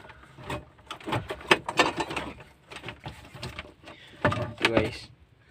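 Irregular clicks, knocks and rattles of a car stereo's metal casing and its wiring being handled.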